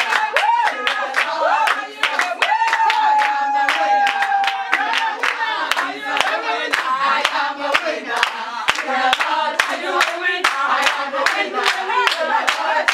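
A group of voices singing a praise song with steady rhythmic hand-clapping throughout.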